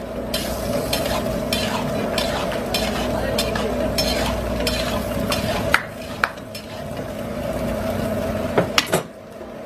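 Mutton karahi boiling hard in an open karahi, the broth bubbling and popping steadily as its water cooks off. A few louder sharp pops come about six seconds in and again near the end.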